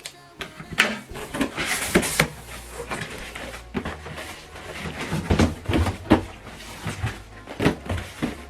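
Irregular knocks, taps and rustles of a package being handled and opened by hand.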